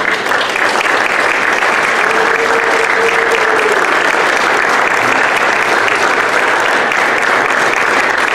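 Congregation applauding, a dense steady clapping.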